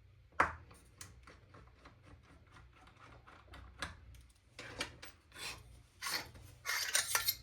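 Small parts of an airsoft sniper rifle's hop-up unit and inner barrel being handled: a sharp click about half a second in, a run of small ticks, then several short scraping rubs in the last three seconds.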